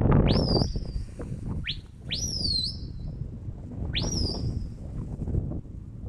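Shepherd's whistle commands to a working sheepdog: four sharp, high whistles, each sweeping steeply up and then holding or dropping, the second one short. Wind buffets the microphone, heaviest in the first second.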